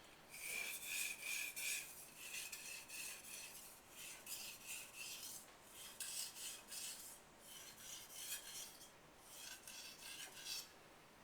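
Knife blade's steel edge scraping over a wet 6000-grit finishing water stone, in six short sets of quick strokes with brief pauses between. The light strokes refine the edge and whittle down the burr.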